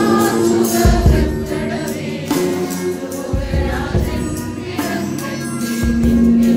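Women's choir singing a Christmas carol with instrumental accompaniment, a low beat landing about every two and a half seconds.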